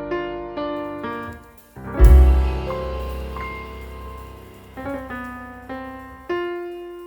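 Background music led by piano: a run of notes, a short pause, then a deep bass hit about two seconds in under slower sustained piano chords.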